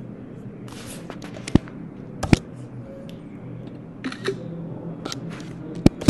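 A few sharp clicks and knocks, about three of them spread out, with short rustling noises between them over a low steady hum: handling noise at the recording desk.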